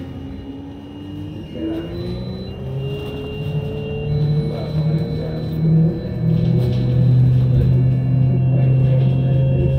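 New Flyer Xcelsior XE40 battery-electric bus accelerating, heard from inside the cabin. The electric drive motor's whine rises steadily in pitch over the first several seconds, then holds, over a steady low rumble of the bus on the road.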